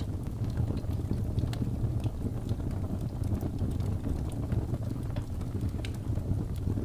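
Wood fire burning, with scattered sharp crackles and pops over a steady low rumble.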